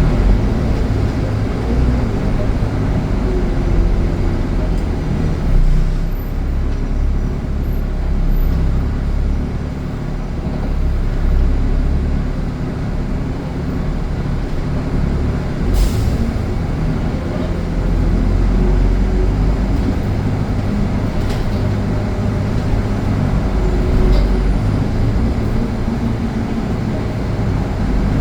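Steady, loud road traffic noise: vehicles passing and running close by, with a sharp click about sixteen seconds in.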